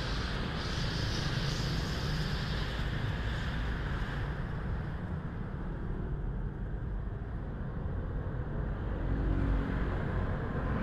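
Steady vehicle rumble with a higher hiss that fades about four seconds in and comes back near the end.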